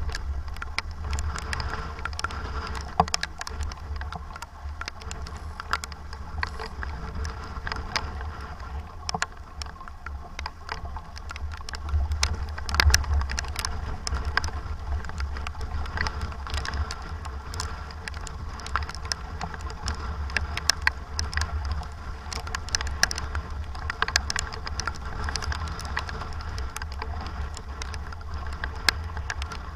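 Sailboat racing in strong wind and rain: heavy wind rumble on the microphone over a steady hiss, with frequent short sharp ticks and taps throughout.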